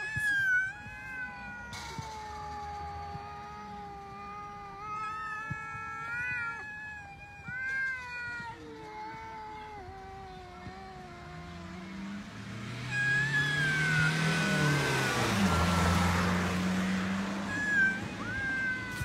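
Two cats yowling at each other in a face-off: long, drawn-out wavering howls that bend up and down in pitch, the warning calls of a standoff between rival cats. About two-thirds of the way through, a passing vehicle's rushing noise swells and fades and is briefly the loudest sound.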